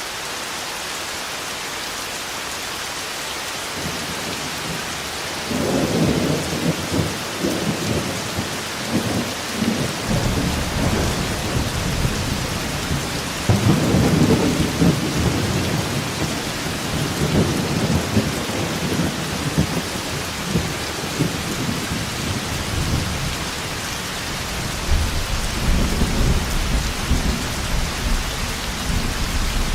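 Steady heavy rain with rolling thunder: the rain runs alone for the first few seconds, then long low rumbles of thunder swell in about five seconds in, strongest around the middle, with another rumble near the end.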